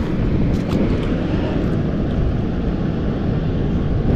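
Steady low rumbling noise of wind and rushing river water, with a couple of faint clicks about half a second in.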